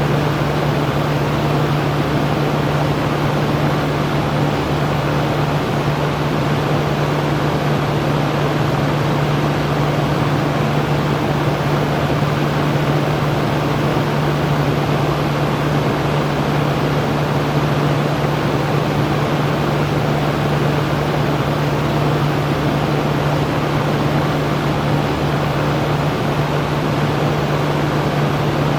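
Electric fan running steadily: an even rush of moving air over a constant low motor hum.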